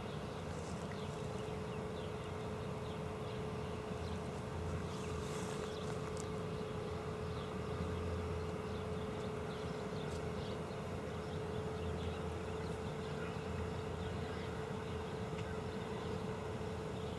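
Norfolk & Western 4-8-0 steam locomotive No. 475 working a passenger train toward the listener, heard as a low distant rumble of exhaust and running gear that pulses slightly. A steady high hum runs over it.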